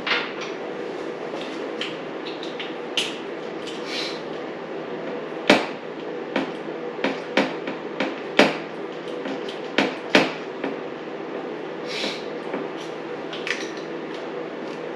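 Metal hand tools and bike parts clinking and knocking during disassembly work, a dozen or so sharp knocks, the loudest about five and a half seconds in, over a steady background hum.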